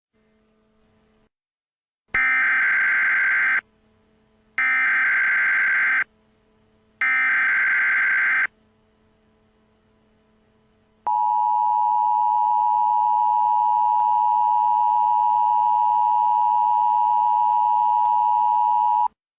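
Emergency Alert System tones. First come three short bursts of buzzing digital data tones, about a second and a half each and evenly spaced: the coded header. Then, about eleven seconds in, the steady two-tone attention signal starts and holds for about eight seconds. The sequence marks the start of an emergency broadcast message.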